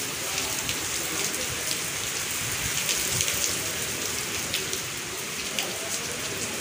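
Heavy rain pouring onto a brick-paved courtyard: a steady hiss of rain with many scattered sharp drop ticks.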